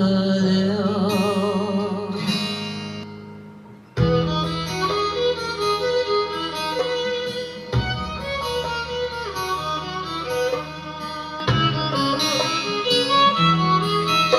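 A song with guitar and strings, played through two tabletop Bluetooth speakers in turn, a Vifa Helsinki and an Edifier QD35, for a sound-quality comparison. The music fades down, then starts again abruptly about four seconds in. The bass changes suddenly twice as the playback switches from one speaker to the other.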